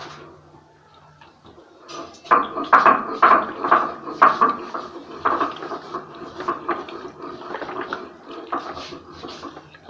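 A hand squishing and turning raw meat, sliced onions and chili powder in an aluminium pressure cooker. The wet, irregular squelching and scraping starts about two seconds in and runs on unevenly.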